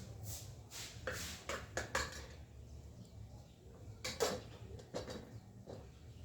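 Cookware and utensils being handled: a string of short knocks and clinks, bunched about a second in and again about four seconds in.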